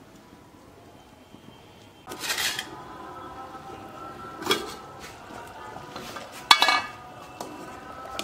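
Steel kitchenware clattering on a clay cooking pot: a steel plate lid and ladle clink against it three times, at about two seconds in, near the middle and near the end. Each strike leaves a brief metallic ring, and the last one is the loudest.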